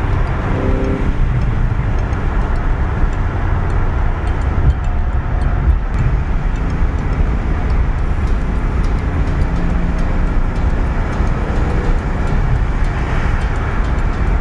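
Cabin noise of a 2013 Porsche 911 Carrera S on the move: a steady low road and tyre rumble with its naturally aspirated flat-six engine running underneath.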